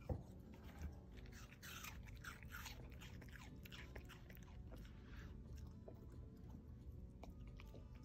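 Shiba Inu chewing a mouthful of food, with a run of crisp crunching bites that is densest about two seconds in, and a single dull knock right at the start.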